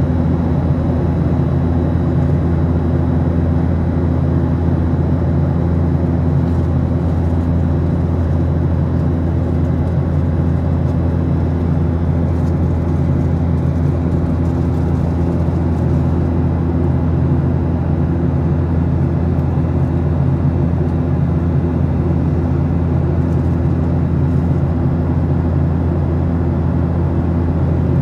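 Steady cabin noise inside a Boeing 737-800 in flight: a constant low rumble of airflow and its CFM56 turbofan engines, with a few steady low hums underneath.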